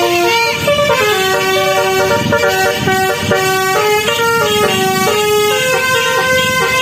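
Telolet basuri multi-tone bus horn playing a tune: a string of held notes, each lasting a fraction of a second and stepping up and down in pitch.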